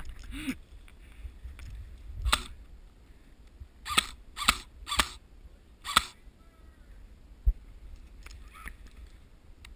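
Airsoft electric M4 rifle firing single shots, each a short sharp snap: one, then four more about half a second apart a couple of seconds later. A single low thump follows near the end.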